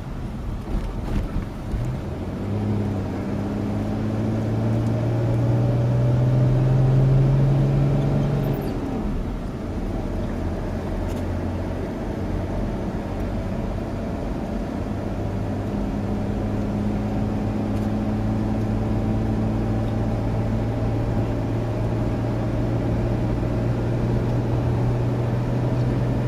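Off-road 4x4 vehicle engine running under load through sand, its note climbing gently for several seconds, then dropping about eight seconds in before holding steady. A few knocks near the start.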